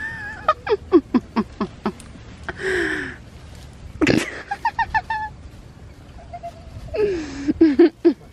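A person laughing in several quick bursts of short, falling 'ha-ha' pulses, with breathy gasps between them and a sharp click about four seconds in.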